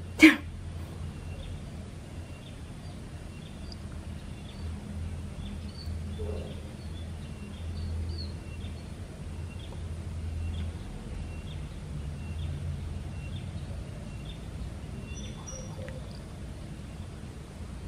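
A cat gives one short meow right at the start. Then a small bird chirps a little more than once a second over a steady low rumble.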